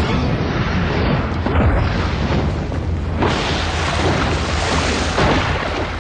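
Action-film sound effects: dense, loud booms and rushing blasts with a heavy low rumble, surging about a second in, around three seconds in and again near the end, over background music.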